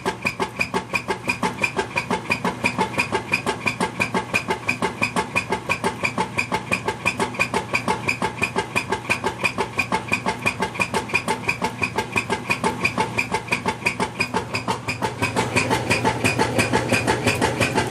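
Whirlpool LSQ9200LQ0 top-load washing machine agitating with a loud, rhythmic noise, about four to five pulses a second, getting a little louder near the end. The owner takes the noise to be abnormal.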